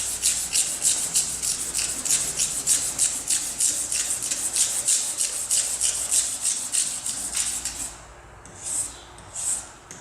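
Rapid back-and-forth hand rubbing on a tractor's painted panel, working off gel coat overspray, a scratchy hiss at about four strokes a second. Near the end it slows to a few slower, separate strokes.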